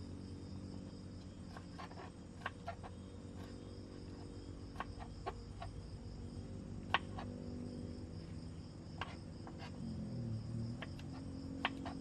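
A steady high drone of forest insects such as crickets, with scattered sharp clicks and light knocks at irregular intervals.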